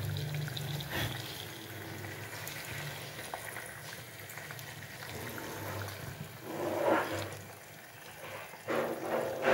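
Water simmering around eggs in an electric cooker pot: a steady low hiss, with two louder bubbling surges in the last few seconds.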